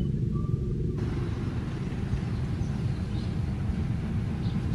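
Diesel-electric locomotive moving light engine during shunting, its diesel engine giving a low, steady drone as it rolls slowly along the track.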